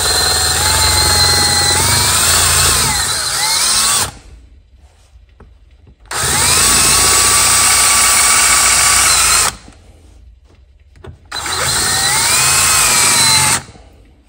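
Cordless drill drilling into the metal plug over the low-speed idle mixture screw of a Kohler Courage carburetor. It runs in three bursts of a few seconds each, its motor whine rising and falling in pitch with the trigger.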